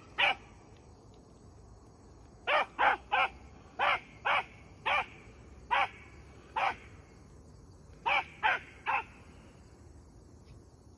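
Young rabbit hound pup baying on a rabbit's scent trail while running it in cover: about a dozen short, sharp barks in uneven bunches, with a gap of about a second and a half between bunches.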